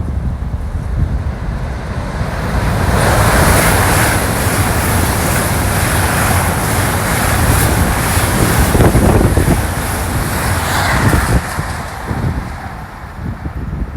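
Wind buffeting the microphone with a constant low rumble. A broad rushing noise swells about three seconds in and dies away near the end.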